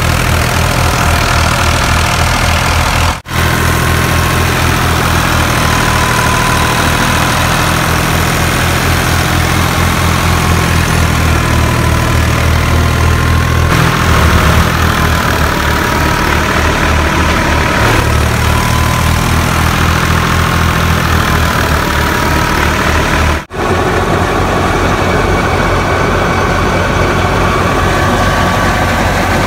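New Holland Al-Ghazi 65 hp tractor's diesel engine running steadily under load, driving a wheat thresher through its PTO, with a high whine that wavers in pitch over the engine's pulse. The sound breaks off for an instant twice.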